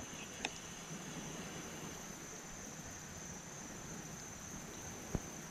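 Quiet outdoor ambience: a faint steady hiss with a thin, high, steady hum, broken by two brief soft knocks, one about half a second in and one near the end.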